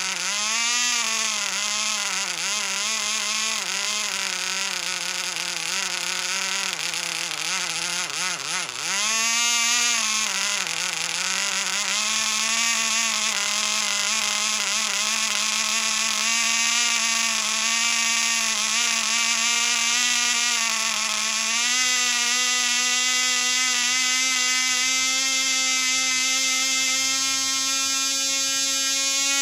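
0.1cc model diesel engine running at high speed with a high-pitched buzzing whine. Its pitch wavers and dips twice around eight to eleven seconds in as the compression screw on top of the head is turned, then steadies and rises a little about twenty-two seconds in.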